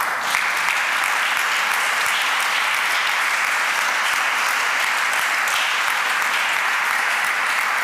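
Audience applauding: dense, steady clapping from a roomful of people that breaks out suddenly and keeps up evenly.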